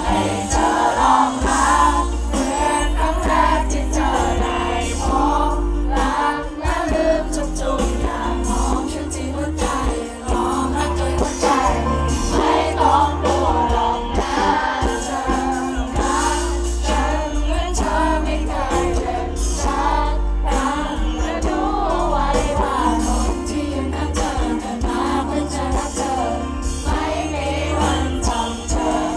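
Live pop music: a male singer singing into a microphone over a backing band, with a heavy, steady bass.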